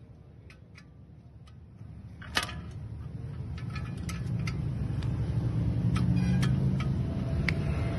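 Light metal clicks and clinks from a motorcycle exhaust silencer and its bolted heat shield being handled, with one sharp clank about two and a half seconds in. A low rumble grows steadily louder through the second half.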